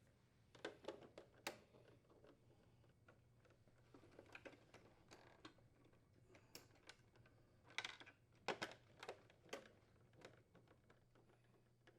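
Faint, irregular clicks and light taps of a nut driver and plastic refrigerator parts being handled while the ice store assembly's mounting screws are taken out. The clicks cluster more thickly about two-thirds of the way through.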